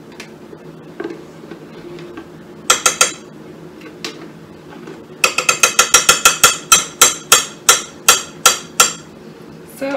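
Glass jelly jar clinking as it is struck again and again to knock the grape jelly out: three quick ringing strikes, then a steady run at about four strikes a second for some four seconds.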